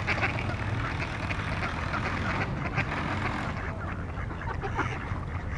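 A flock of mallard ducks quacking, with many short calls overlapping into a steady chatter that thins a little after about three and a half seconds.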